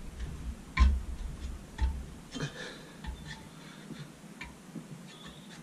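Scattered light clicks and knocks from a workpiece being pushed and handled in a bench vise, with a few low thumps in the first two seconds and only small ticks after that.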